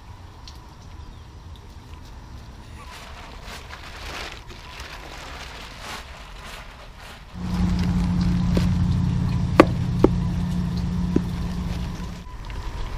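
A steady low motor hum starts suddenly about seven seconds in and stops about five seconds later, with a few sharp clicks over it. Before it there is only faint outdoor noise.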